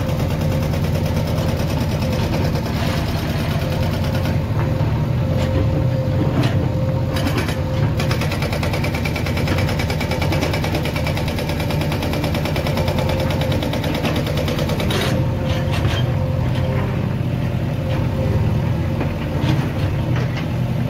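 Diesel engines of JCB 3DX backhoe loaders running steadily while digging, a low rumble with a steady hum above it.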